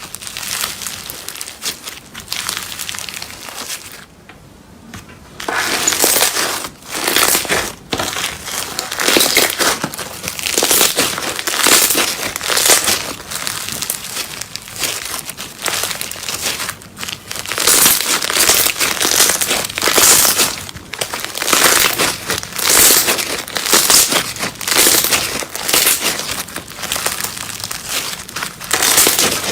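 Slime being squeezed and kneaded by hand, crackling and crinkling in repeated swells, with a short lull about four seconds in.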